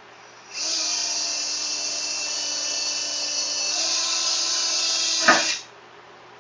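Power drill running, boring holes in an electric cooling fan shroud: a steady whine for about five seconds that shifts slightly partway through, with a sharp crack just before it stops.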